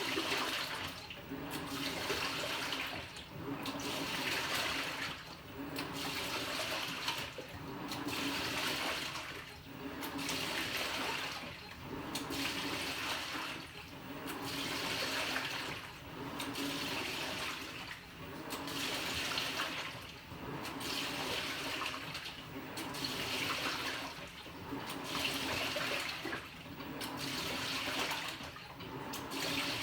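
Panasonic NA-FA100H9 top-loading washing machine agitating its load: water sloshes in a regular swish about every two seconds as the pulsator drives the water one way and then the other, over a steady low hum.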